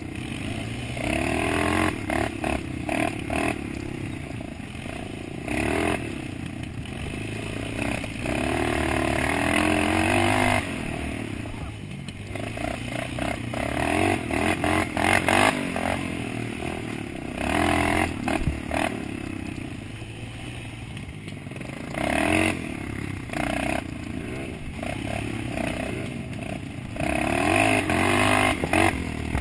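Dirt bike engine revving up and down again and again while riding a rough off-road trail, with wind buffeting the microphone.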